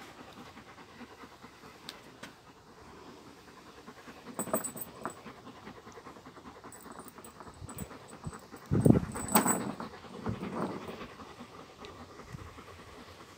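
Central Asian Shepherd Dog (alabai) panting, with a short louder burst about four and a half seconds in and the loudest sounds near nine seconds.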